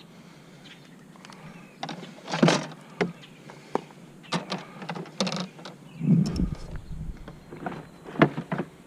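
Irregular knocks, clanks and scrapes of scrap being handled and moved, with heavier thumps about two and a half, six and eight seconds in.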